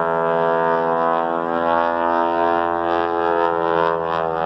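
Aerobatic propeller plane's engine and propeller droning steadily overhead during a smoke-trailing manoeuvre.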